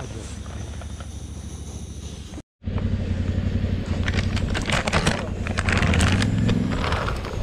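Liquid-fuel camp stove burning with a steady low rumble under a steel bowl. The sound cuts out for a moment about two and a half seconds in. From about four seconds in, a plastic snack bag crinkles as it is opened and handled.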